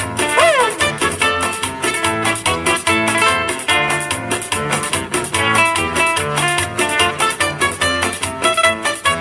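Requinto guitar playing an instrumental passage of Ecuadorian music, a plucked melody over repeating bass notes, with a brief falling glide about half a second in.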